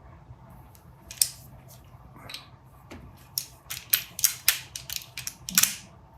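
Small hard parts clicking and clacking as they are handled and fitted together during reassembly of a prop revolver. There is one sharp click about a second in, then a quick, irregular run of sharp clicks from about halfway through.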